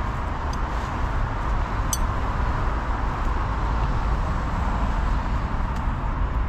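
Steady hum of road traffic from a busy junction, with a faint click about two seconds in.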